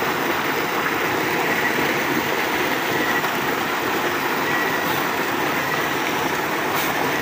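Water rushing and churning steadily as it pours over a small cascade into a river pool, an even, continuous noise.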